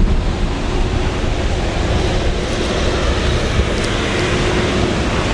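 Wind buffeting the microphone: a steady rushing noise with a low, fluttering rumble, and a faint hum that comes and goes.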